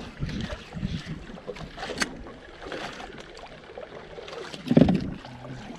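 Sea water lapping and splashing against the hull of a small outrigger boat, with wind on the microphone and one louder thump about five seconds in.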